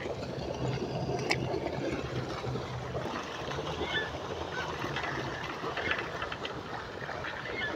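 Steady outdoor background noise with a low hum, and a single sharp click about a second in.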